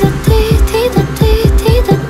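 Electronic dance remix of a Chinese pop song: a fast, steady kick-drum beat under a melody of short held notes that step up and down.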